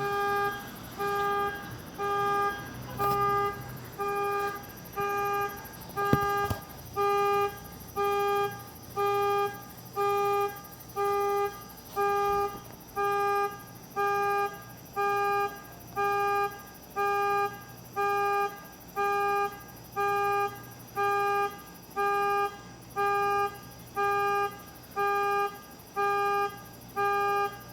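Ford Escape's anti-theft alarm sounding the car horn in steady half-second honks about once a second, one tone repeating evenly, until it stops just before the end. A sharp click sounds about six seconds in.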